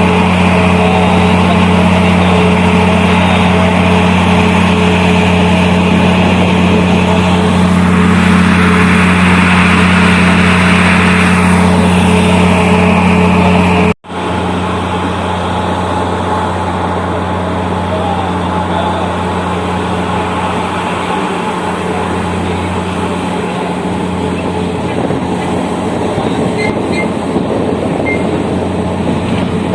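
Heavy marine diesel engine of a tugboat running steadily with a deep drone as it works a coal barge alongside a ship's hull. The sound drops out abruptly about halfway through and then the drone carries on a little quieter.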